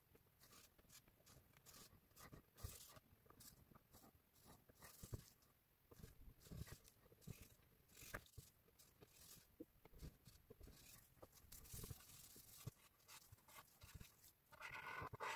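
Near silence with faint, scattered small clicks and rustles of hands handling work on a bench, and a slightly louder scrape near the end.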